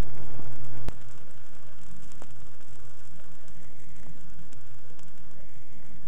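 Stylus running in the unrecorded groove of a vinyl LP: steady surface crackle and hiss over a low hum, with one sharp click about a second in.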